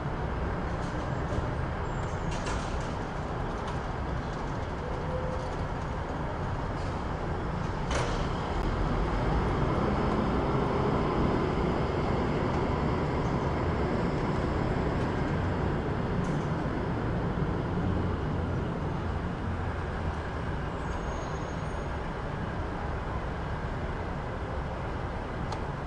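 City street ambience: a steady wash of road traffic that swells louder for several seconds around the middle as vehicles pass close, with a few brief sharp clicks or knocks.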